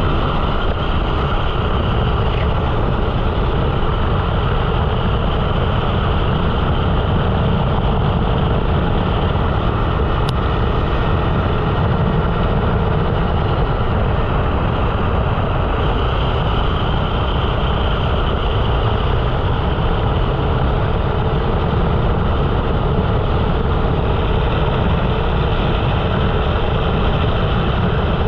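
Single-cylinder four-stroke engine of a 13 hp rental kart, running continuously under way and heard from on board. It is a loud, dense drone that holds steady with no clear revving up or down.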